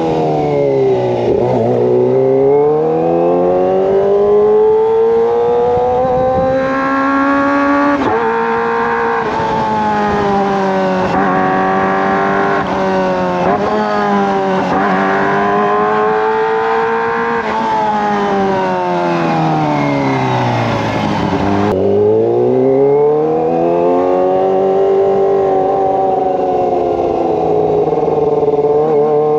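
Kawasaki ZX-25R's 250 cc inline-four engine running through a Racefit Slash aftermarket exhaust while ridden. The revs dip, climb, then rise through a run of quick upshifts, each climb in pitch cut by a short drop. About two-thirds through they fall away to a low point and climb again.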